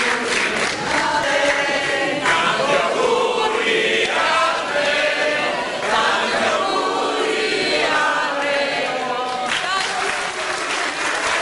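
A group of people singing together in chorus. Applause breaks in near the end.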